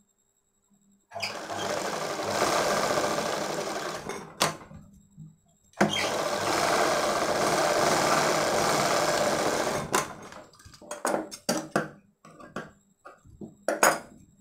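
Domestic sewing machine running in two steady bursts of about three and four seconds, stitching a seam through the frock bodice and its lining, with a click between them. Short clicks and rustles follow as the fabric is handled.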